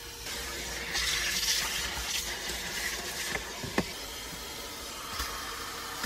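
Steady hiss of rushing air from an interior cleaning tool, loudest from about a second to two seconds in, with one sharp click just before the four-second mark.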